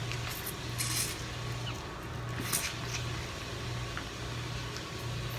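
Eating steamed blue crab: a few short crackles and wet mouth sounds as crab meat is picked from the shell and chewed, over a low hum.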